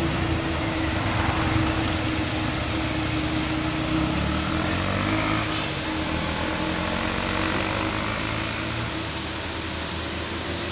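Heavily loaded cargo truck's engine labouring as it climbs away up a steep winding road, its pitch rising a little about halfway through and the sound slowly fading as it moves off.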